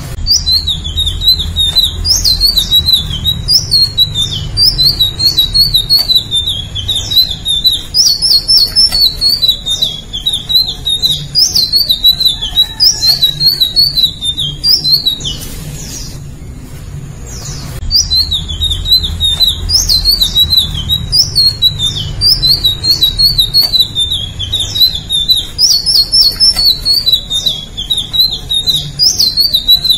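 Indigo flycatcher singing: fast, high, jittery warbling phrases repeated one after another, with a short pause about halfway through.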